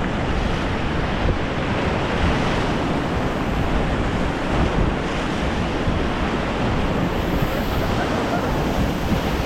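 Rushing whitewater of a class 3 rapid on the Ganges, a loud steady wash of water, with wind buffeting the microphone.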